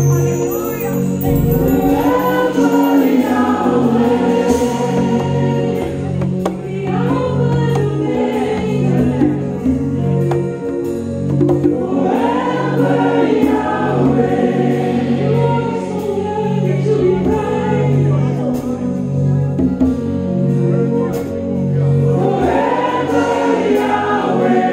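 Live worship music: several voices singing together over a band, with sustained low notes pulsing at an even rhythm underneath.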